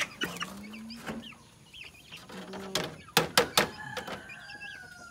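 Young native chickens in a wire cage cheeping and clucking, with a few low held calls. A quick run of four sharp knocks from the wire cage about halfway through.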